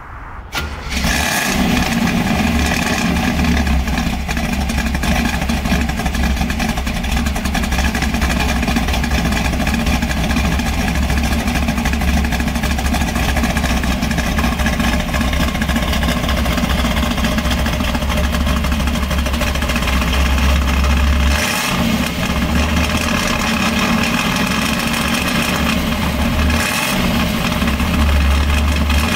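1968 Chevrolet Camaro Z/28's 302 cubic-inch V8 cold-started, catching about a second in and then running steadily with a deep rumble. Its note changes briefly twice in the last third.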